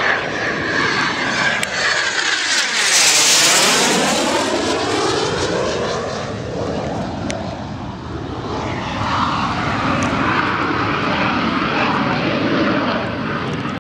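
Airplane passing low overhead near the runway end. It grows loud to a peak about three seconds in, with a sweeping, whooshing change in pitch as it goes over, then settles into a steady engine rumble that swells again later on.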